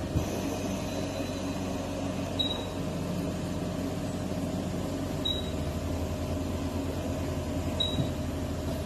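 Steady low hum of running machinery, with a short high beep about every two and a half to three seconds.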